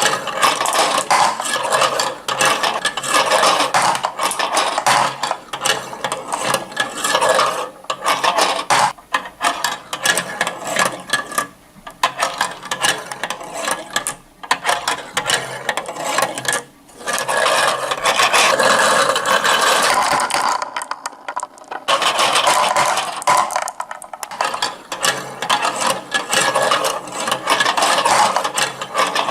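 Many marbles rolling and clattering down a toy marble run track: a dense, continuous rattle of small clicks, with a brief lull about two-thirds of the way through.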